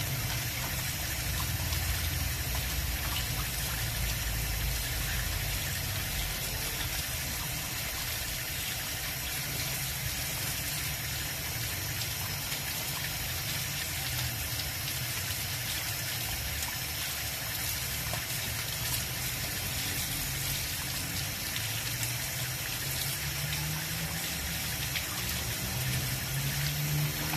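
Water running steadily from a tap into a tiled sink, splashing over cassava roots as hands rub and rinse them.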